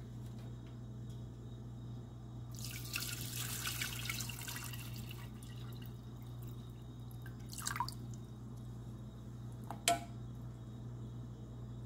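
Water pouring and splashing into a stainless steel pot coated with hardened sugar syrup, over a steady low hum. A wooden spoon knocks sharply against the pot near the end.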